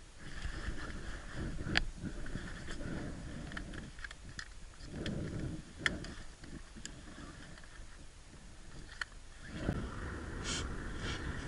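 Ice-fishing gear being handled and gathered up: clothing rustling, with scattered sharp clicks and light knocks, the sharpest about two seconds in and about six seconds in.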